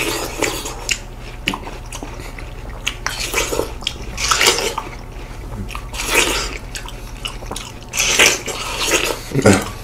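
Juicy, wet bites and chewing of watermelon slices by two people eating, coming in several separate slurpy bursts.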